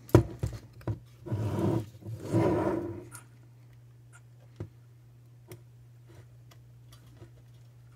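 Small metal clicks and ticks of a steel hook tool against a car stereo's metal chassis as a small tension spring is worked into place, the sharpest click at the very start. Two short grunts of effort come in the first few seconds, over a steady low hum.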